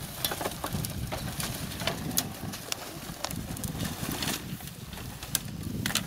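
Dry brushwood rustling as branches are dragged off a wooden cart, with scattered sharp cracks and clicks of twigs.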